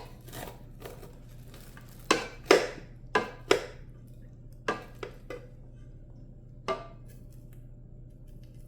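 A knife cutting kernels off an ear of corn, the blade striking and scraping against the dish in about nine sharp strokes, clustered between two and four seconds in with a last one near seven seconds. A low steady hum runs underneath.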